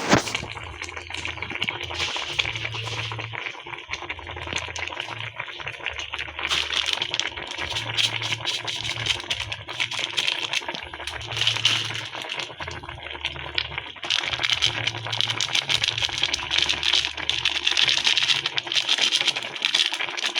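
A utensil stirring a pot of jackfruit stewing in coconut milk, a continuous rattling clatter of quick clicks, with a low hum that comes and goes underneath.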